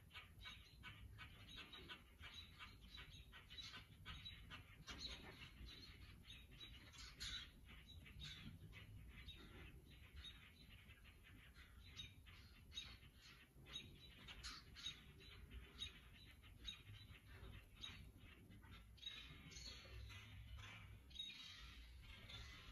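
Faint mobbing calls of small birds, mostly common grackles and American robins, harassing a hawk: a quick, irregular run of short, sharp chirps and chips.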